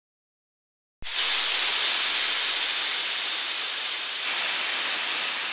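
A steady, bright hiss like escaping pressurised air, starting abruptly about a second in out of dead silence and easing off slowly over the last second or so.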